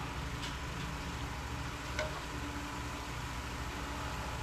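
A steady low mechanical hum, like a motor or engine running, with one light click about two seconds in.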